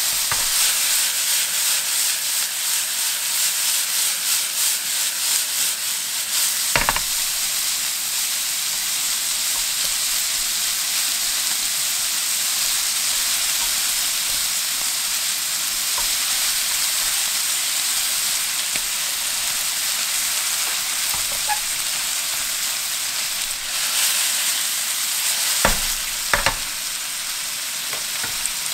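Diced lamb sizzling steadily in a hot nonstick frying pan as it is stirred with wooden chopsticks, with a few sharp clicks of the chopsticks against the pan, one about seven seconds in and two close together near the end.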